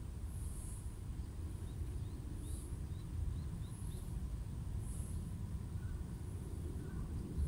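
Outdoor city ambience: a steady low rumble, with a bird chirping a quick run of short calls about two to four seconds in.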